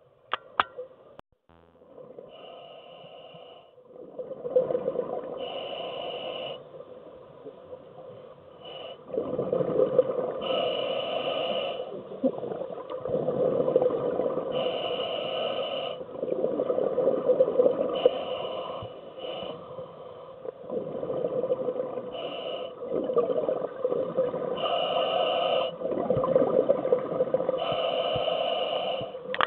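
Scuba diver breathing through a regulator underwater: a short hissing inhalation about every three to four seconds, each followed by a longer, louder rush of exhaled bubbles. A faint steady hum runs underneath.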